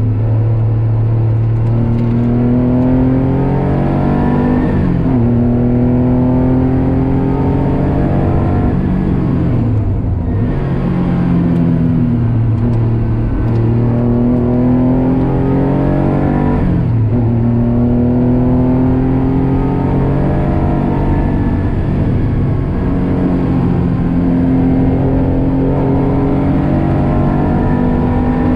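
Race car engine heard from inside the cabin, pulling hard uphill. The pitch climbs for several seconds and drops sharply at each gear change, repeating several times, with a brief lift off the throttle around ten seconds in.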